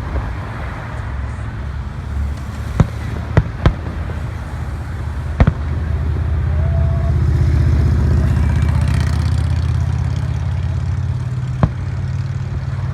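Fireworks going off: five sharp bangs at irregular intervals, two of them close together, over a steady low rumble that swells through the middle.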